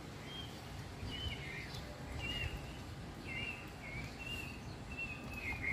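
A small bird chirping: a string of short, high calls about once or twice a second, over a steady low background rumble.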